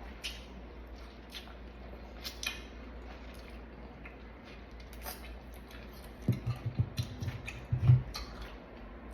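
Close-up eating sounds: crunching and chewing of raw fruit, with scattered sharp crunchy clicks and a run of heavier, louder chewing pulses about six to eight seconds in.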